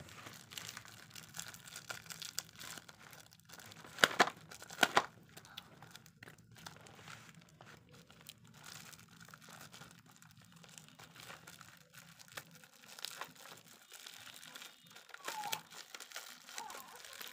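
Plastic bubble wrap crinkling and rustling as it is handled and pulled open, with two louder, sharp crackles about four and five seconds in.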